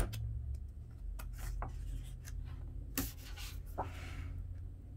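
Pages of a large art book being turned by hand: paper sliding and rustling, with a sharp tap about three seconds in.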